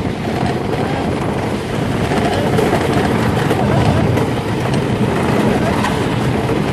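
Great Coasters International wooden racing coaster train running at speed over its wooden track: a steady, loud rumbling ride noise.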